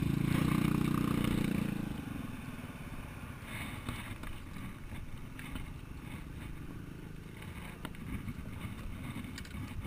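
Motorcycle engine running: a loud, steady engine note for about the first two seconds, then it drops away to a quieter, uneven low rumble like an idling engine.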